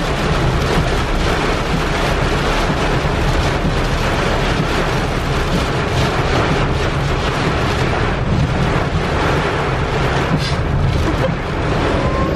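Heavy storm rain pounding a moving car's windshield and body, mixed with steady tyre and road noise, heard from inside the car. Near the end a siren starts up, rising in pitch.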